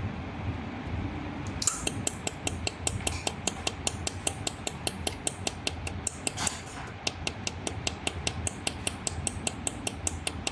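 Pulsed jewelry laser welder (SuperbMelt SPB-200WB) firing repeatedly: a regular train of sharp clicks, about four or five a second, starting about two seconds in, over a low steady hum.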